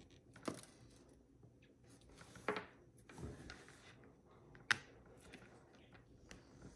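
Faint handling noise as fingers twist and thread fluorocarbon leader through a fisherman's knot on a hook, with a few small clicks and rubs; the sharpest click comes about two thirds of the way in.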